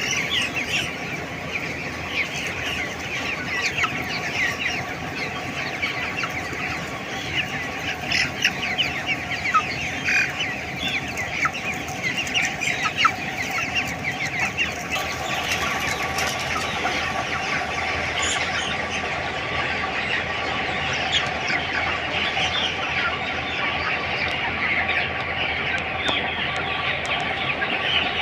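A large flock of three-week-old broiler chickens, many birds chirping and clucking at once in a continuous overlapping chatter, over a steady hum.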